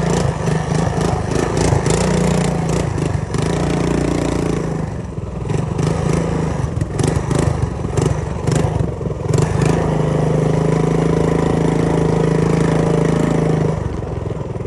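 Megamoto 212 mini bike's 212 cc single-cylinder four-stroke engine running under throttle while riding over rough ground. It eases off about five seconds in, is then held at steady revs, and drops near the end, with the bike rattling and knocking over bumps.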